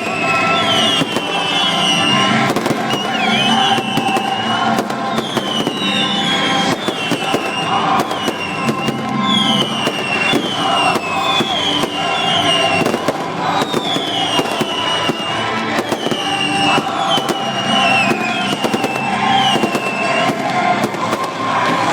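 Fireworks display with continuous rapid crackling and popping, and a series of short falling whistles about once a second.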